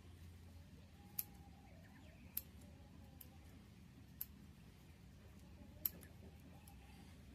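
Small scissors snipping through a rooster's frostbitten crest, four sharp separate snips a second or two apart.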